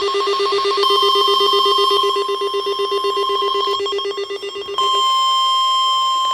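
Electronic emergency-alert tones: a fast-trilling, ringing tone over a low buzz, which about five seconds in gives way to a single steady high alert tone of the kind weather radio sounds before a watch or warning.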